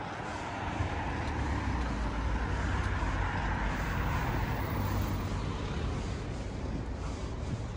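A vehicle passing close by: engine rumble and tyre noise swell over a couple of seconds, then slowly fade.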